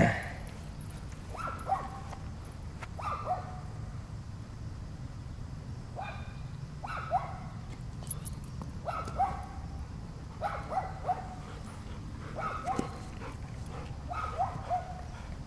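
A dog whining in short, high-pitched cries that fall in pitch, about a dozen of them, singly or in quick pairs every second or two, as it waits eagerly during a game of fetch.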